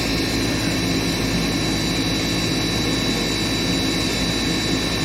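Gas furnace's draft inducer motor running with a steady hum and a thin high whine. The motor is worn and going bad; it had seized and been spun free by hand.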